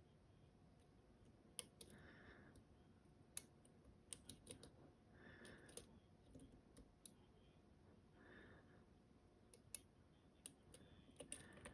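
Faint, scattered small metal clicks of lock picks and a tension tool working the pins and sidebar sliders inside a Caveo TS007 euro cylinder.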